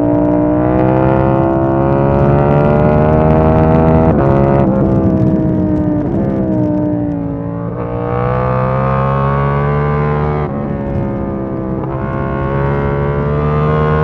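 KTM 890 Duke R's parallel-twin engine pulling hard at road speed. Its pitch climbs steadily, then drops and picks up again a few times as the throttle and gears change.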